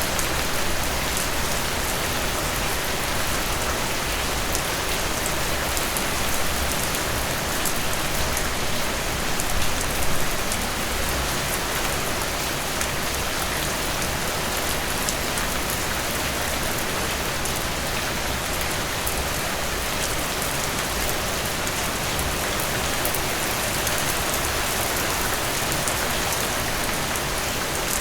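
Steady rain falling on a surface, with fine drop patter, swelling slightly louder for a moment about ten seconds in.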